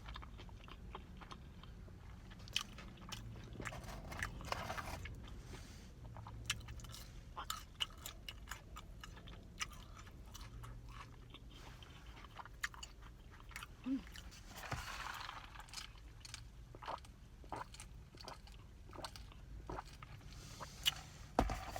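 Close-up eating sounds of a crispy fried chicken sandwich: biting, crunching and chewing, with many irregular crisp clicks and mouth noises.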